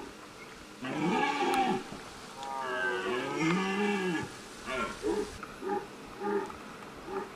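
Red deer stag roaring: two long, pitched roars, then a run of about five short grunts. This is the stag's rutting call.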